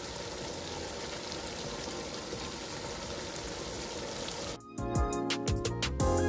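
Chicken curry frying in a pot on high heat, with a steady sizzle. About four and a half seconds in it cuts suddenly to background music with plucked notes.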